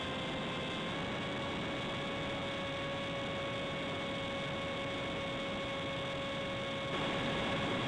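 Electric motor and propeller of a Reely Wild Hawk RC motor glider, heard from a camera on the plane: a steady high whine under power during the climb, with wind rush over the airframe. The pitch steps up slightly about a second in, and the wind rush grows louder near the end.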